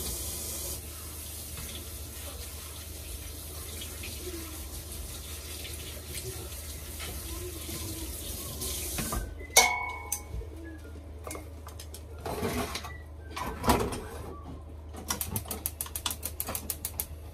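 Water running from a kitchen tap into the sink, a steady hiss that stops abruptly about nine seconds in. Then a sharp clink with a brief ring, a few knocks of kitchenware, and a quick run of light taps near the end.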